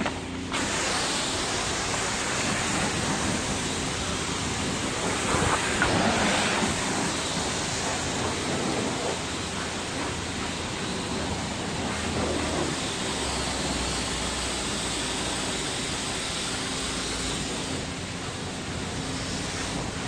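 High-pressure car-wash wand spraying water in a steady hiss, with a faint steady hum underneath.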